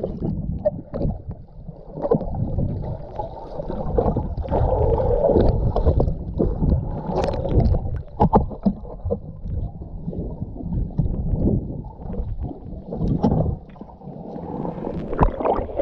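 Muffled underwater water noise picked up by a submerged camera: dull bubbling and swirling, with a few short knocks.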